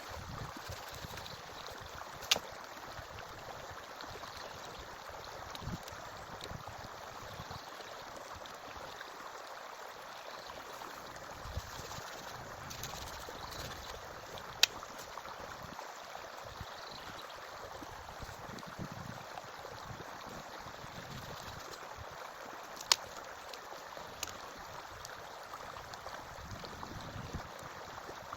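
Forest stream flowing steadily, with a few sharp knocks standing out above it, the loudest about two, fifteen and twenty-three seconds in.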